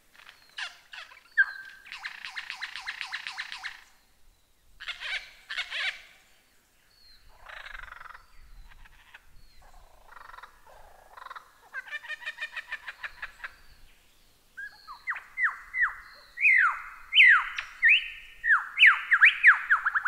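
Lyrebird singing a varied song: rapid rattling trills and short chips, then, in the last few seconds, a loud run of whistled notes that each fall steeply in pitch.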